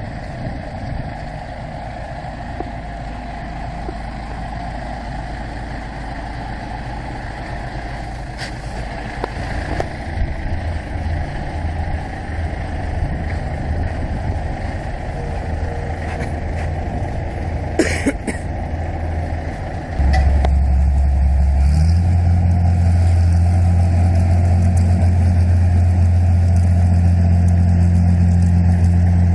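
Diesel engines running: the engine of an 8060 rice combine harvester as it drives down off a low-loader trailer, with a truck idling. About two-thirds of the way in the engine note gets much louder and settles into a steady low drone, just after a sharp click.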